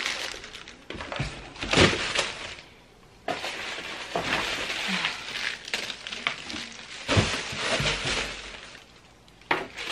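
Crinkling white shoe wrapping and rustling inside a cardboard box as sneakers are handled and lifted out, with a couple of sharper knocks, about two seconds in and again about seven seconds in.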